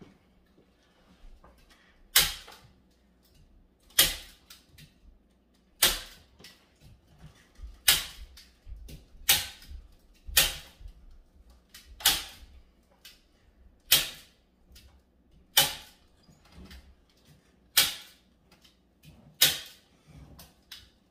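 Staple gun firing staples into the wooden tufting frame to fasten the tufting cloth along its edge: a sharp snap about every two seconds, eleven in all, with faint handling clicks between them.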